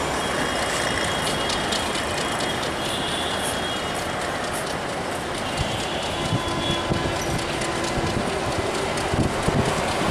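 Diesel locomotives running as passenger trains move slowly through a station yard. From about six seconds in, irregular knocks of the wheels over rail joints and points grow more frequent.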